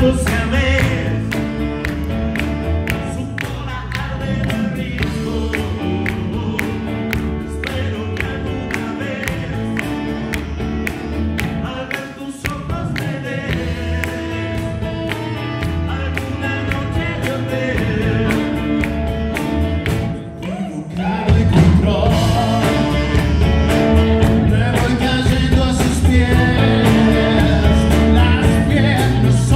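A live rock band plays a song with a male lead singer, drums, electric guitar, bass, keyboard, saxophone and violin. The music drops briefly about 20 seconds in, then comes back louder and fuller.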